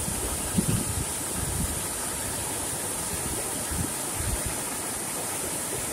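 Water from an overflowing irrigation tank rushing and churning in a steady stream of white water over a concrete spillway, with occasional low thumps on the microphone.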